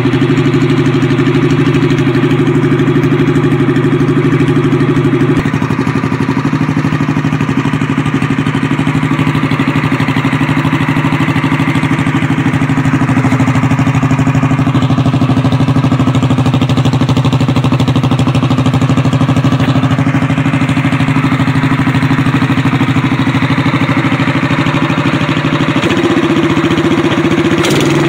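Predator 212–class single-cylinder four-stroke small engine running steadily, heard through a Supertrapp-style disc muffler with twelve discs and a resonator. Its pitch drops slightly about five seconds in and rises again near the end.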